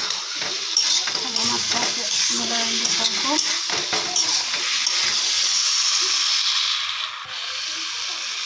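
Potato pieces and chana dal badi in masala being stirred with a spatula in a steel kadhai, the spatula scraping and knocking on the pan over a steady sizzle of frying oil. The sizzle eases a little about seven seconds in.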